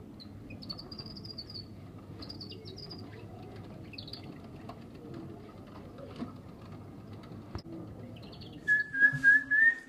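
Supermarket ambience: a steady low hum with scattered short high chirps, then a louder run of wavering squeaks near the end.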